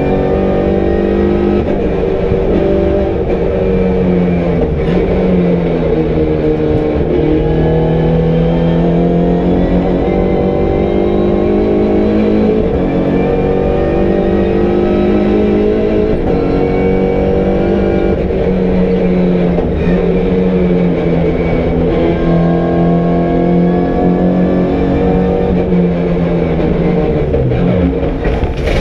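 A MINI Challenge race car's engine heard from inside the cockpit at racing speed, its pitch rising under acceleration and falling with each gear change and lift. The pitch drops sharply near the end as the driver slows and shifts down.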